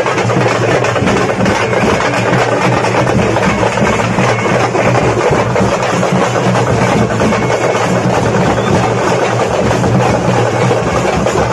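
Loud, dense din of a large crowd on the move, with drums beating.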